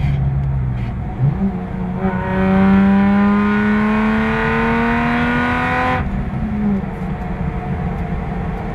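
Car engine heard from inside the cabin, accelerating hard down a straight. Its pitch jumps up about a second in, then climbs steadily and loudly for about four seconds before dropping suddenly, over a steady rumble of road and wind noise.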